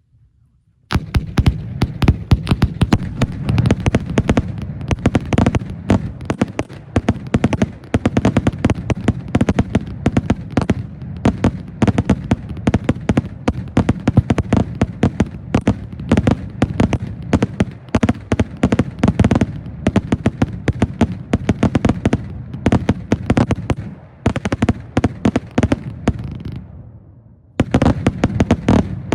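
All-salute firework cake (100-shot, 500 gram) firing rapid, loud report bangs, several a second, in a near-continuous barrage. The barrage breaks off briefly near the end, then a short burst of bangs follows.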